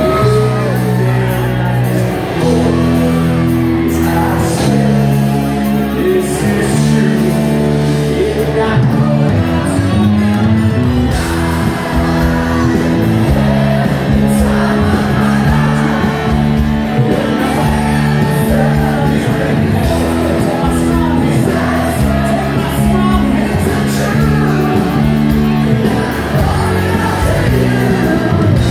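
Live rock band playing loudly in a large hall, with electric bass and guitar and a singer, heard close to the stage. Shouts and whoops from the crowd rise over the music.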